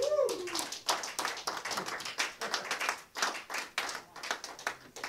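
Small audience applauding at the end of a piece, the clapping thinning to a few scattered claps near the end.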